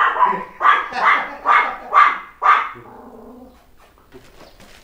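Dog barking, about six sharp barks roughly two a second, stopping a little over halfway through.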